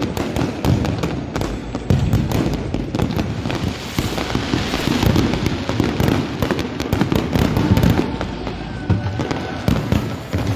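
Fireworks going off in a dense, continuous barrage: many sharp bangs and rapid crackling pops over a steady low rumble, with no break.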